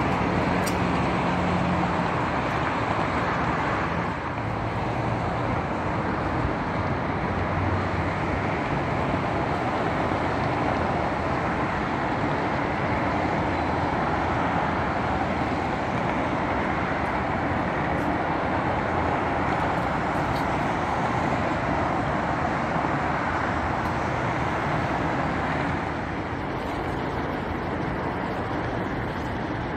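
Steady traffic noise from a busy multi-lane highway: the tyres and engines of many cars passing together, easing off slightly near the end.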